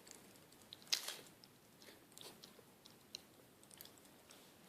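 Faint chewing with small scattered crackling clicks of Pop Rocks candy popping in a mouth; one louder click about a second in.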